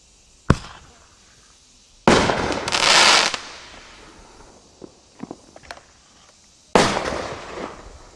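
Consumer artillery-shell fireworks (spherical shells) going off: a sharp bang half a second in, a loud burst with a hiss about two seconds in, a few small pops, then another loud bang near the end that trails off.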